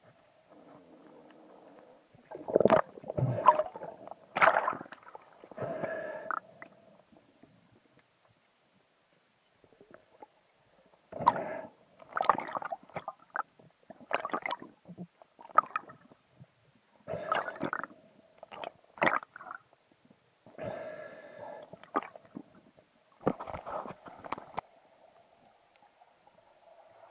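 Water sloshing and gurgling around a spearfisher's camera at the sea surface, in irregular bursts with a quiet stretch about eight seconds in, over a faint steady hum.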